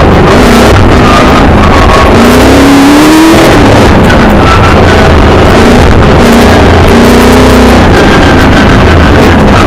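Milner R5 off-road racing car's 5-litre V8 engine heard from inside the car, very loud, its revs climbing and dropping back repeatedly as the car accelerates and eases off, with clear rises about two to three seconds in and again around six to eight seconds in.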